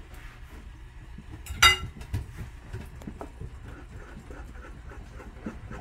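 A utensil stirring and beating thick hilbet paste in a pot: faint, repeated scraping knocks, with one louder short ringing clink about a second and a half in.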